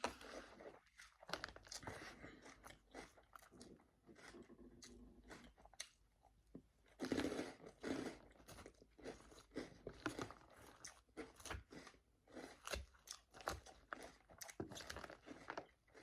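Close-up chewing of a Caesar salad, the leaves crunching with every bite in a dense, irregular run of crunches, briefly louder about halfway through.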